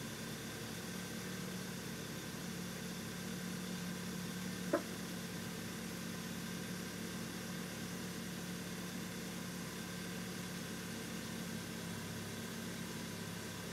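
A 2014 car's 2.0-litre turbocharged engine idling steadily, with a single sharp click about five seconds in; the owner calls a sound in this stretch strange.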